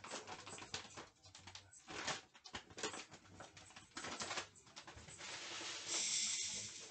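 Crinkly plastic packaging rustling and crackling as it is handled and opened, with many quick clicks. From about five seconds in a steady hiss takes over and is the loudest part.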